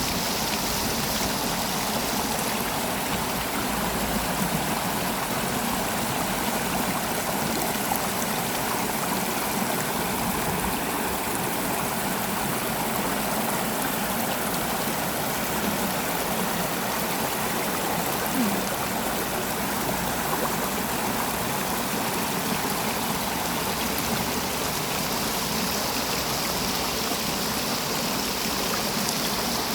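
Mountain stream rushing over rocks: a steady, even rush of flowing water.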